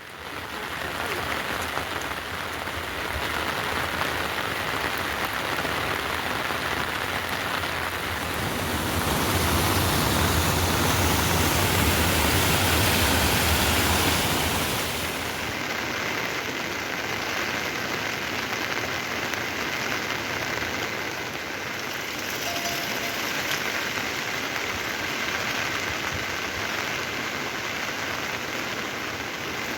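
Heavy rain falling steadily, swelling louder for a few seconds about a third of the way in.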